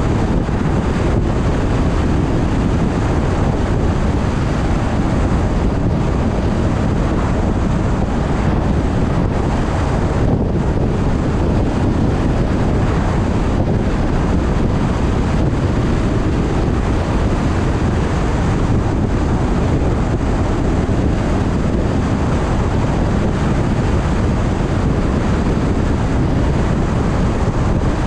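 Car driving along a road: a steady rush of wind and tyre noise, with wind buffeting the microphone.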